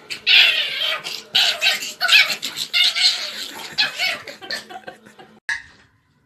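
Cat vocalizing in a run of harsh, uneven bursts that stop about a second before the end.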